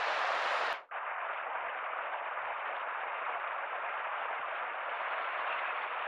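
Steady rushing of a shallow river running over stones. It starts just under a second in, after a brief dropout cuts off a brighter steady hiss.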